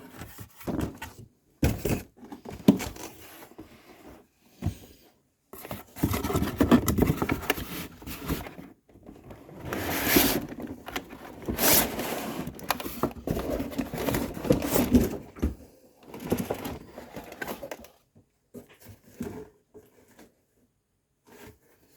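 Cardboard box and packaging being handled as a chainsaw is pulled out: irregular scraping and rustling with a few sharp knocks, in uneven bursts with short pauses.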